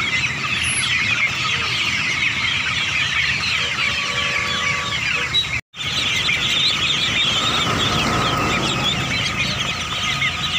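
A crowd of young poultry peeping and cheeping non-stop, many high calls overlapping. The sound cuts out for an instant about halfway through, and the same dense peeping of a crowd of ducklings follows.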